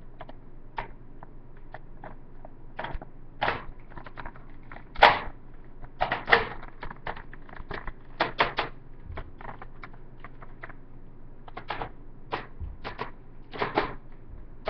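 Hard plastic clicking and clacking of a Buzz Bee Hawk toy dart blaster being handled and fitted together. The clicks come irregularly, with a louder knock about five seconds in.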